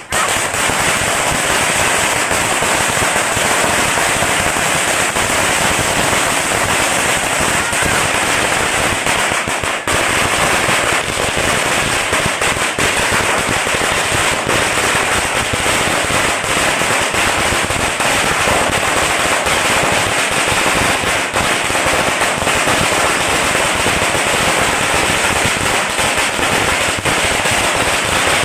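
A 4000-cracker firecracker string (mercun long) going off in one dense, rapid, unbroken run of sharp bangs, with a brief dip about ten seconds in.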